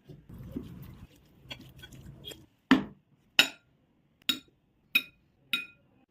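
A utensil scraping and stirring in a bowl, then five sharp, briefly ringing clinks of a spoon knocked against a glass or ceramic bowl, spaced a little under a second apart.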